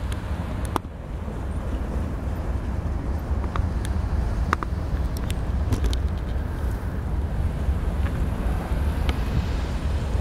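GE ES44AC-H diesel locomotive running with a steady low rumble, with a few short clicks and squeaks.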